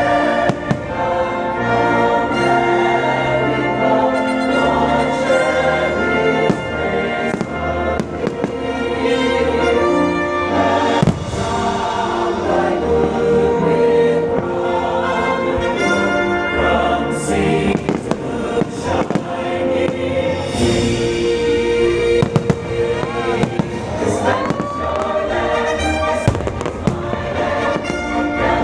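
Fireworks bursting and crackling repeatedly over a loud orchestral and choral soundtrack of American folk songs.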